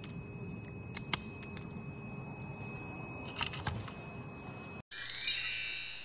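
Metal clicks from a passive electronic padlock being handled: two sharp clicks about a second in and a few softer ones a little past three seconds, over a faint steady high tone. Near the end a short, bright logo jingle cuts in suddenly and is the loudest sound.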